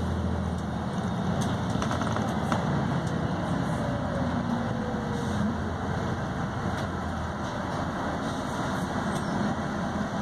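Volvo B6BLE single-deck bus's six-cylinder diesel engine pulling under load through its ZF automatic gearbox, heard from inside the passenger cabin, with road noise and occasional light clicks.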